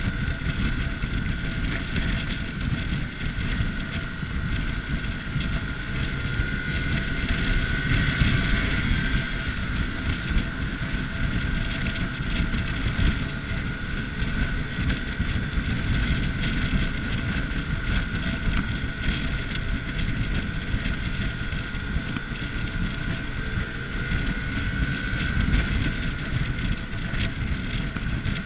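Vespa GTS Super Sport 125 scooter's single-cylinder four-stroke engine running at a steady cruise, under heavy wind rumble on the microphone, with a steady whine running through it.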